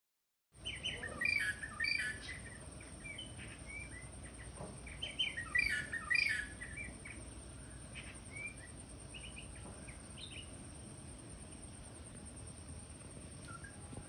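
Greater racket-tailed drongo calling: two bursts of quick, varied chirps and whistles, about a second in and again around five to six seconds in, then scattered fainter calls.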